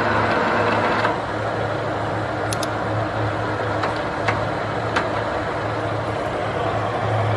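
Horizontal boring mill running on a steel weldment: a steady machine hum with a deep drone, easing slightly about a second in, and a few sharp clicks later on.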